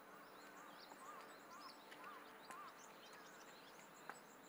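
Faint birdsong: several birds chirping, with one short call repeated about twice a second for the first three seconds. A single light click about four seconds in.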